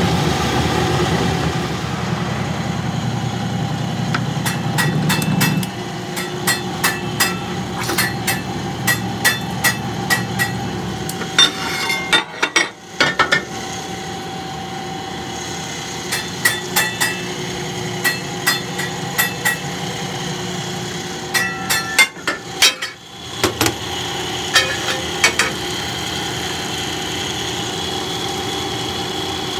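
Workshop machinery running steadily, with a low hum for the first few seconds, then several runs of sharp metallic knocks, about two a second, as steel wheel rim parts are worked at the press.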